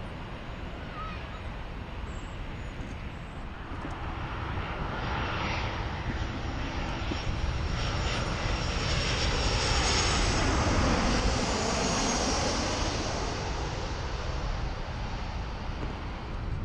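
Jet airliner passing low overhead on its landing approach: the engine noise swells over several seconds, peaks with a high whine about ten to twelve seconds in, then fades away.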